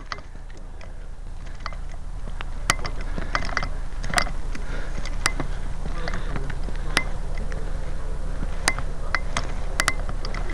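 Steady low rumble, typical of wind and handling noise on a small gun-mounted camera's microphone, with a string of sharp clicks at irregular intervals.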